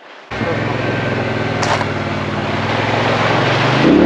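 A 2022 Polaris Sportsman XP 1000 ATV's twin-cylinder engine running as the quad fords a rocky creek, with a loud rush of water splashing up around the wheels. It starts suddenly a third of a second in, and the engine note rises near the end.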